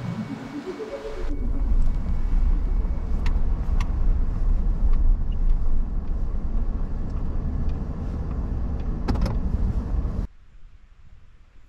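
Vehicle heard from inside its cabin, driving slowly: a steady low engine and tyre rumble with a few sharp rattles and knocks. It cuts off abruptly near the end.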